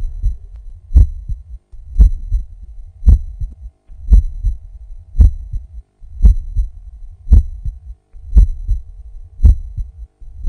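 Recorded heart sounds heard through a stethoscope: a steady rhythm of about one beat a second, each beat a strong first sound ('poum', B1) followed by a softer second sound ('ta', B2).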